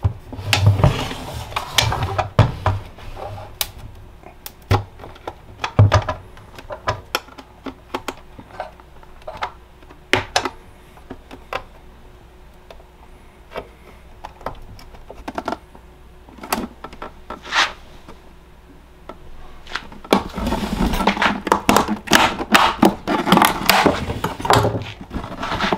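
A super-glued plastic battery case being pried open with hand tools. For most of the stretch there are scattered clicks, taps and scrapes. About 20 seconds in it turns to a dense run of cracking and scraping as the glued seam gives way and a side panel comes off.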